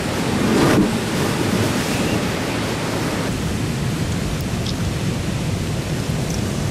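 Heavy ocean surf breaking and churning as a steady rush of white water, with a louder surge about half a second in.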